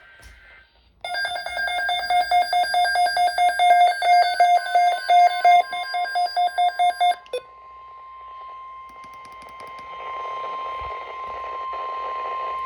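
A weather alert radio's electronic alarm beeping rapidly for about six seconds, then cutting off. Partway through, the steady 1050 Hz NOAA Weather Radio warning alarm tone starts under it and carries on over radio static, the tone that comes before a broadcast alert message.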